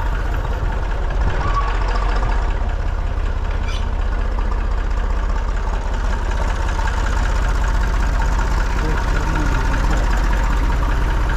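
Small red Ferguson tractor's engine running at a steady idle, with an even firing beat and no change in speed.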